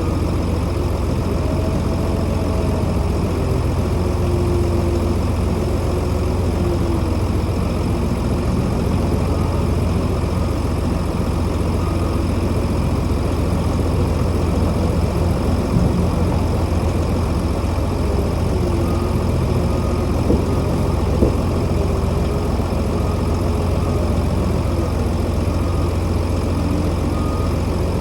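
Engine of farm machinery running steadily with a deep drone, with a few brief knocks partway through.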